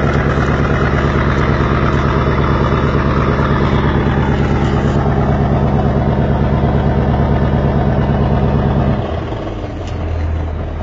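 A fishing boat's engine running steadily with a fast, even beat. About nine seconds in, the low engine note drops away and the sound becomes quieter.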